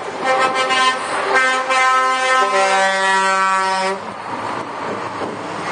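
Lorry air horns sounding, first in a few short toots and then as a long multi-note chord that shifts lower about two and a half seconds in and stops at about four seconds. After that comes the steady noise of a passing truck's diesel engine and tyres.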